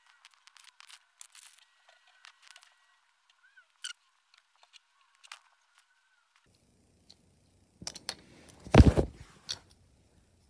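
Faint scattered clicks and rustles, then near the end a loud thump and a few knocks as the phone filming is picked up and handled.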